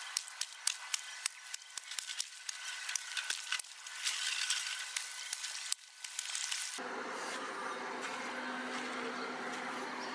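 A hoe chopping and scraping into wet soil and mud, a quick run of sharp knocks about three a second with a louder scrape partway through. About seven seconds in this gives way abruptly to an even, steady rushing noise.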